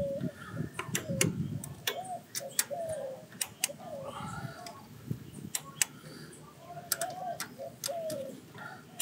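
Socket wrench ratchet clicking in quick, irregular runs as the intake manifold bolts are tightened, with handling noise against metal. A dove coos repeatedly in the background.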